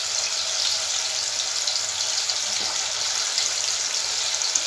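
Marinated chicken pieces deep-frying in hot oil in a kadhai: a steady sizzle.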